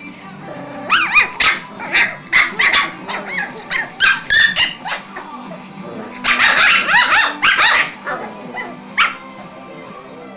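Cavalier King Charles spaniel puppies play-fighting, giving a run of short, loud yaps and barks, thickest about six to eight seconds in. Background music plays steadily underneath.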